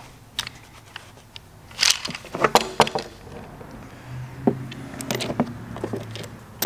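Metal cam bearing installation tool and its bearing adapters being handled: the long driver bar is laid on a wooden workbench and the adapters are moved about in a plastic carrying case. A run of irregular clicks and knocks, thickest about two to three seconds in.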